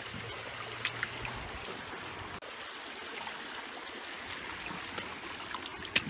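Shallow creek water trickling and running through an aluminium gold sluice box and over stones, with a few light clicks and one sharper click near the end.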